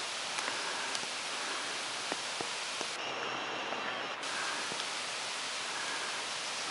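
Steady rain hiss falling on wet forest and road, an even wash of noise with a few light drip ticks.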